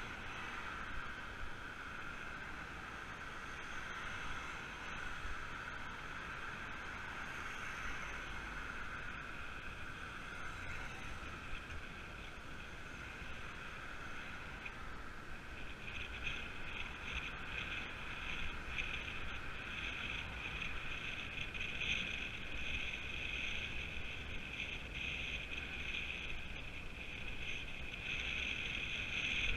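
Steady riding noise of a road bike on the move: low wind rumble on the mounted camera's microphone and a high, steady hiss from the tyres on tarmac, which grows louder and flutters from about halfway through.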